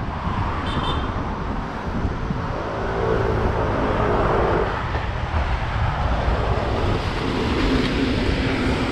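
Road traffic running alongside: a steady rush of car engines and tyres, with an engine hum rising out of it near the end as a vehicle passes close by.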